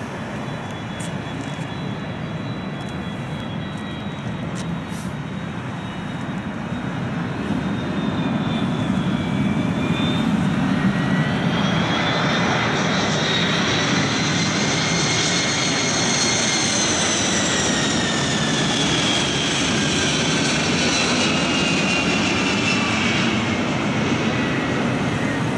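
Four-engine Boeing 747SP jet on landing approach, its Pratt & Whitney JT9D turbofans running at approach power. The engine noise grows louder about a third of the way in as the aircraft nears. A high fan whine rises in pitch and then slowly falls as the jet passes.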